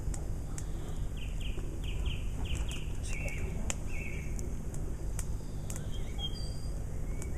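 Burning sticks of a small campfire crackling with scattered sharp pops, while a songbird calls: a run of short falling notes, about two a second, then two longer notes.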